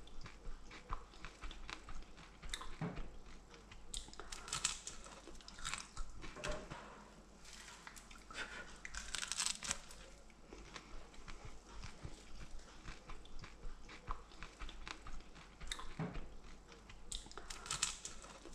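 A person biting and chewing a crisp homemade snack close to the microphone: irregular crunches and small crackles, with denser bursts of crunching about four seconds in, near the middle and near the end.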